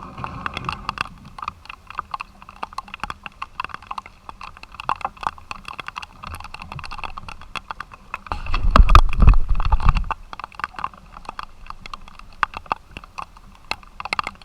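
Irregular sharp ticks of rain falling, with a low rumble of wind on the microphone from about 8 to 10 seconds in.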